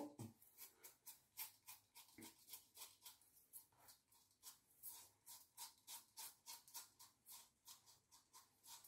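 Gillette Sensor 3 three-blade cartridge razor shaving lathered stubble in short, quick strokes: faint scraping, about two or three strokes a second.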